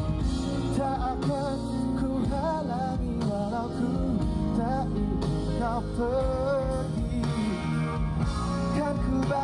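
Live rock band playing a song: a male lead singer over electric guitar and drums.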